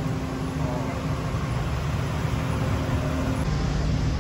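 Steady low rumble of street traffic, motorbikes and cars. A faint steady hum runs under it and stops about three and a half seconds in.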